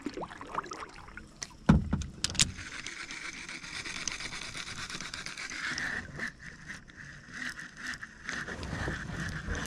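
A baitcasting reel being cranked, with a steady whir from about three seconds in as the topwater snake lure is retrieved. A thump comes about two seconds in.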